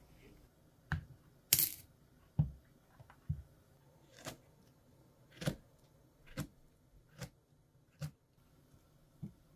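A kitchen knife slicing a peeled banana, each cut ending in a short soft tap of the blade, about one a second. One louder, longer rustle comes about one and a half seconds in.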